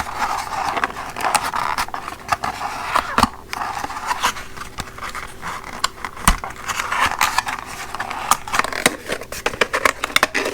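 Packaging being handled and unfolded: a continuous crinkling rustle with frequent sharp clicks and knocks, as the bagged impact socket set and its paper information sheet are taken out.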